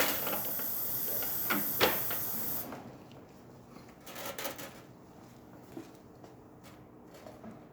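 A steady machine noise with a strong hiss runs and cuts off suddenly about three seconds in. After it come a few scattered, quieter knocks and clatter of handling.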